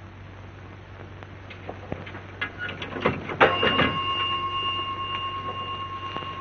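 A few light clicks and knocks, then a bell struck once about three and a half seconds in, its tone ringing on and slowly fading.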